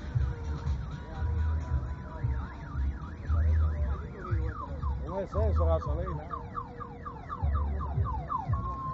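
Electronic car alarm siren cycling through its tones: a fast rising-and-falling wail, then a run of quick repeated chirping sweeps. Heavy bass pulses from music thump about every two seconds underneath.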